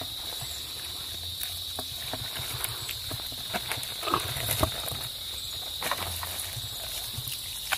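Steady high-pitched insect drone, with scattered splashes and drips as water is poured from a plastic bowl over a whole fish, a little louder about halfway through.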